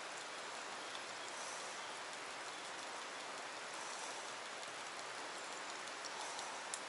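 Steady, even hiss of water falling into a pool from a small waterfall, with no other sound standing out.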